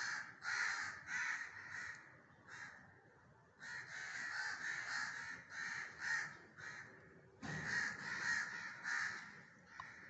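Crows cawing over and over, harsh calls in quick runs broken by short pauses.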